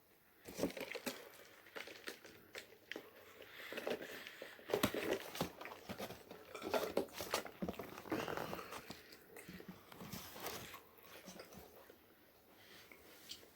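A person biting and chewing McDonald's fast food close to the microphone, in irregular bursts of mouth noise and small clicks.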